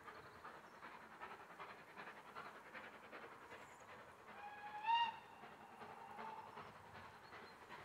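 Distant steam locomotive whistle: one short blast about five seconds in, rising slightly in pitch, over a faint, quiet outdoor background.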